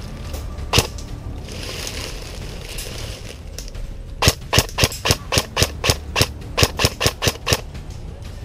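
Airsoft rifle firing. One sharp shot comes about a second in. Then, near the middle, a quick string of about fourteen single shots follows at roughly four a second.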